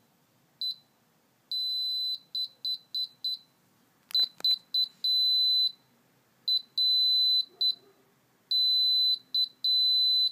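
Piezo buzzer on a Parallax BASIC Stamp HomeWork Board sounding a high-pitched Morse code tone in short and long beeps, spelling the amateur-radio call sign KE6VRK (here 'E6VRK'). Two sharp clicks come with the first beeps of the V, about four seconds in.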